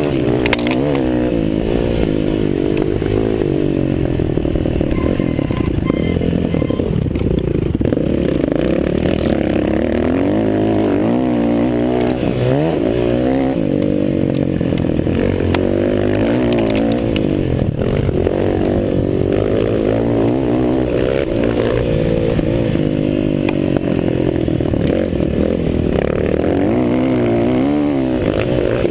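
Several motocross dirt bikes racing, their engines revving up and down and overlapping, the pitch rising and falling again and again.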